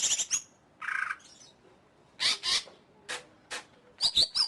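A cucak ijo (green leafbird) singing in short bursts of sharp, high notes separated by brief pauses: a quick cluster at the start, a buzzier note about a second in, a pair of notes after two seconds, two thin single notes, then a rapid run near the end.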